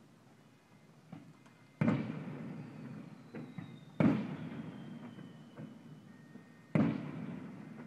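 Aerial fireworks shells bursting: three loud booms about two to three seconds apart, each echoing away, with a few fainter pops in between.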